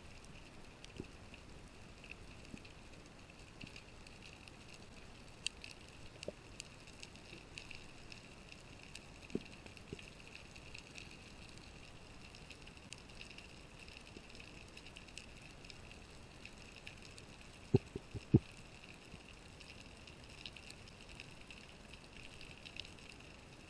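Underwater ambience picked up by a camera below the surface: a faint, steady hiss with scattered small clicks, and two sharp knocks a little over halfway through, about half a second apart.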